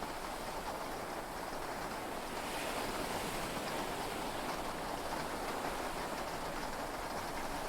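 Heavy rain and sea waves heard from inside a yacht's cabin: a steady wash of noise that swells slightly about two and a half seconds in.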